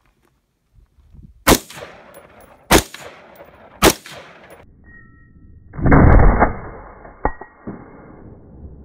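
AR-15 rifle fired three times, a little over a second apart, each shot a sharp crack with a short echo. About two seconds later comes the loudest sound, a duller, muffled boom of about half a second, followed by two small clicks.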